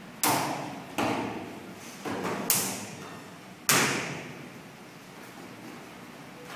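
Sharp cracks from a kung fu practitioner's strikes, kicks and stamps while performing a form: five in the first four seconds, about half a second to a second apart, each echoing briefly in the hall.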